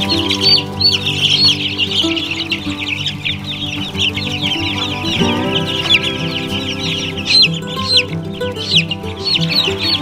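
A crowd of young Cornish cross meat chicks peeping without a break, many short, high, downward-sliding peeps overlapping, over background music with sustained notes.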